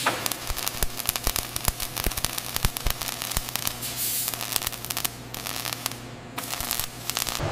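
Robotic arc welding torch running a bead along a steel plate seam: a dense, irregular crackling and sputtering of the arc over a steady low hum.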